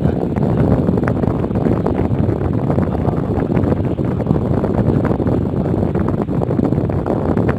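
Steady low rumbling wind noise on the phone's microphone, loud and even throughout.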